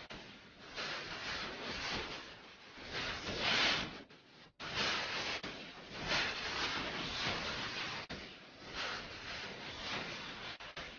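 Hissing noise that swells and fades unevenly, dropping out briefly about four seconds in.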